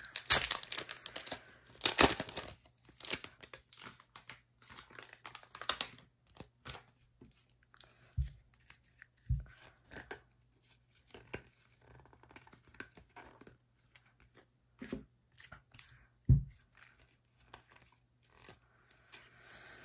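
A foil trading-card pack torn open and crinkled for the first few seconds, then light clicks and soft taps as the cards are flipped through one by one, with a few soft low thumps.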